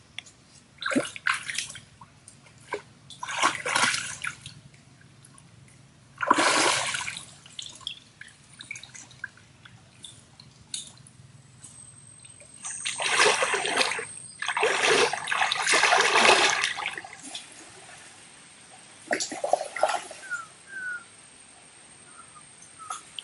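Shallow stream water splashing and sloshing in irregular bursts, stirred by a stick and hands among submerged tree roots at the bank. The longest and loudest splashing comes a little past halfway.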